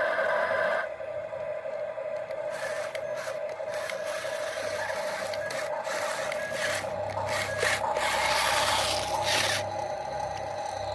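Toy RC excavator at work, its bucket scraping and rubbing through loose material in irregular stretches, the longest and loudest in the second half, over a steady high whine.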